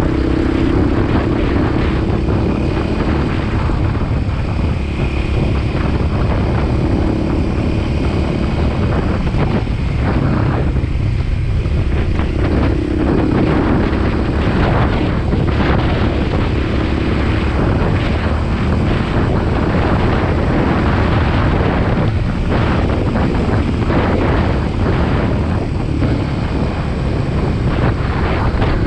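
Motorcycle engine running at road speed under heavy wind buffeting on the microphone. The engine's hum drops away for a couple of seconds about ten seconds in, then comes back.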